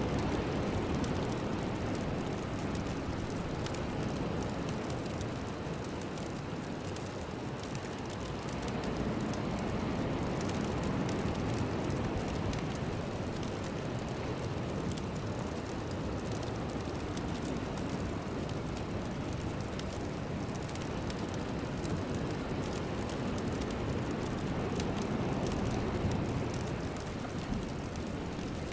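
Steady rushing noise bed of a meditation sound track, deep and full with a fine crackle on top, swelling and easing slowly over several seconds, with no tune or voice.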